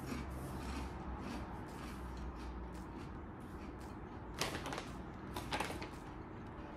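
Faint crunching as a mouthful of Peatos crunchy pizza rings is chewed, then a crinkly plastic snack bag rustles loudly twice as it is picked up, a little past halfway and about a second later.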